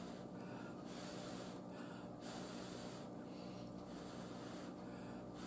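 Faint breathing through the nose while chewing a mouthful of noodles, a soft breath about every second and a half.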